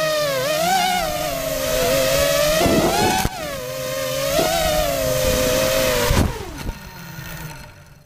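Saturn Eclipse 220 racing quadcopter's brushless motors whining, the pitch wavering up and down with throttle. Near the end the motors spool down and fall quiet as the quad settles in the grass.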